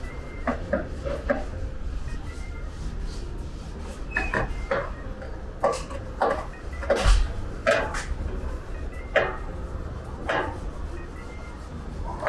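Irregular knocks and clanks of work in a body shop, about a dozen spread over several seconds, over a low steady hum.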